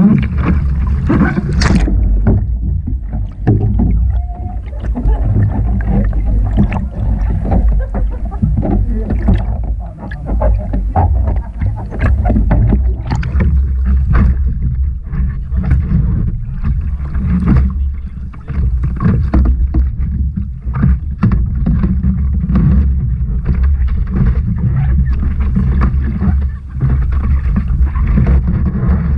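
Heavy low rumble of wind and water buffeting an action camera mounted on a surf kayak, with frequent splashes and slaps of sea water against the kayak as it rocks in the surf.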